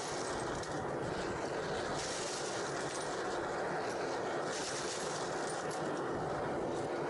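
Metal-melting furnace running with a steady rushing noise as it heats the crucible. Spent aluminium cartridge casings are dropped into the crucible by hand a few at a time, with faint clinks.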